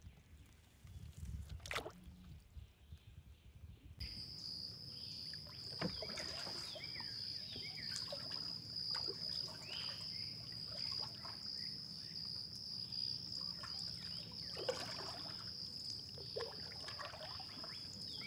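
Outdoor swamp ambience: faint and low at first, then about four seconds in a steady high insect drone starts, with many short chirping calls over it.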